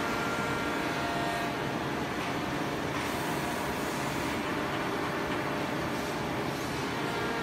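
Woodmaster 2.5D CNC wood router machining a wooden table-top panel: a steady machine hum with a high, steady spindle whine.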